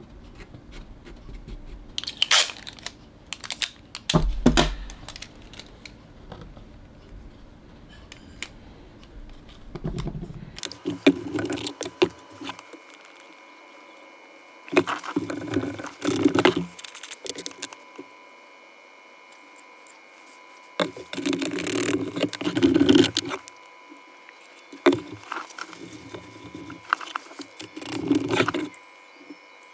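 Small handling sounds and a few sharp clicks as thin wooden sticks are glued against a clear plastic resin mold. After about ten seconds, epoxy resin is poured from a plastic bottle into a plastic measuring cup, then stirred with a flat stick that scrapes the cup. These come as several short bursts.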